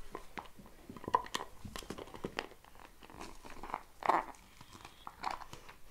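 Shiba Inu puppy chewing a plastic bottle toy: irregular crackles and crunches of the plastic under her teeth.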